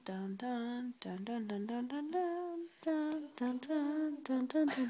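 A woman humming a tune, a run of short notes that rise and fall in pitch.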